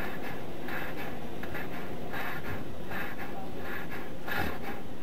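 Steady microphone hiss with a scratchy rubbing that repeats about once every three-quarters of a second, like clothing rubbing against a microphone.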